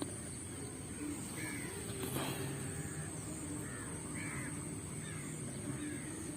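Birds calling outdoors, a short call repeated every second or so, over a steady low hum and high hiss.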